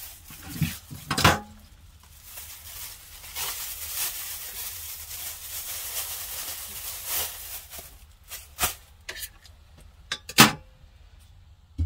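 Plastic grocery bag rustling and crinkling as it is handled, stopping about eight seconds in. A few sharp clicks and knocks follow, one louder knock near the end.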